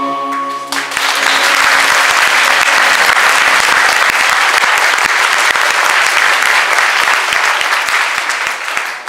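Audience applauding loudly, beginning just under a second in as the backing track's last chord cuts off, and dying away near the end.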